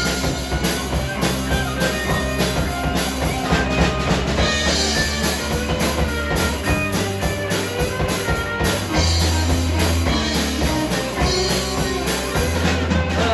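A live rock band playing an instrumental passage: drum kit keeping a steady beat under electric guitar and bass.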